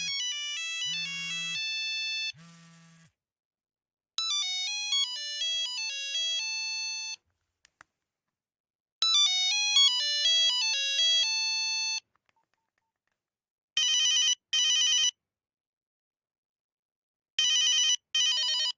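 Nokia 8210 mobile phone ringtones: several short beeping monophonic tunes of about three seconds each, separated by pauses, followed near the end by two pairs of rapid trilling ring bursts like an old telephone bell. Three low buzzing pulses sound under the first tune.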